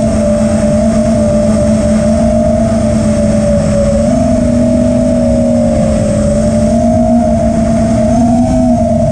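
FPV racing quadcopter's four T-Motor Velox V2 2207 1750 KV brushless motors spinning Ethix S3 props, recorded onboard: a steady high motor whine at near-constant throttle, its pitch rising and dipping slightly, over a rough low rumble.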